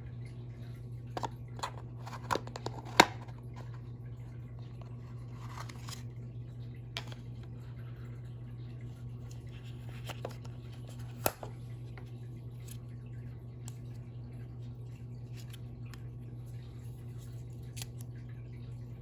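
Hands handling AirPods packaging: a quick cluster of sharp clicks and taps about a second in, a brief rustle, another sharp click midway, then faint scattered ticks, over a steady low hum.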